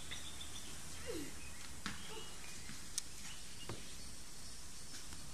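Steady outdoor background noise in woodland, with a few faint sharp clicks and a brief falling sound about a second in.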